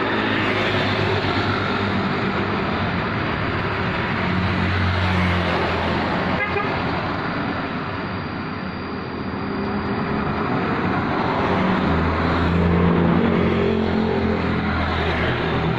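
Road traffic: motor vehicles passing along a village road, their engines swelling as one goes by about five seconds in and another, louder, near the end, over a steady wash of road noise.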